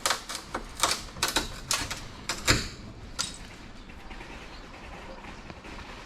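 Quick scraping and clicking strokes of a hand tool carving away at a carbon fiber hood, about a dozen in the first three seconds, then only a steady faint hiss.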